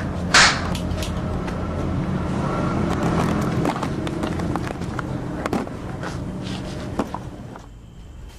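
A scuffle on a street: one loud, sharp hit just after the start, then a steady low rumble with scattered knocks and scuffling. Near the end it drops away to a much quieter background with a faint, steady high-pitched chirr.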